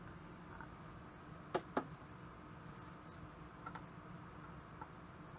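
Two light clicks about a quarter second apart and a few fainter ticks from hands handling a direct-drive turntable's aluminium platter, over a faint steady hum.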